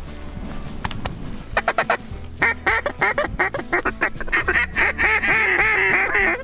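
Duck call blown in mallard hen quacks: a few short clicks, then a fast, loud series of quacks that keeps going and grows denser toward the end.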